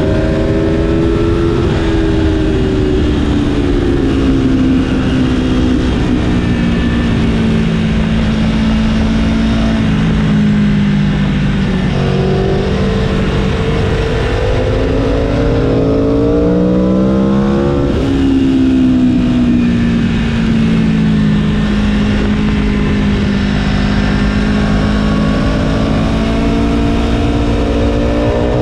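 Onboard sound of a 2019 Aprilia Tuono's V4 engine running hard on track in third gear, over a steady rush of wind. Its pitch falls as the bike slows for corners and climbs again as it accelerates out, several times over.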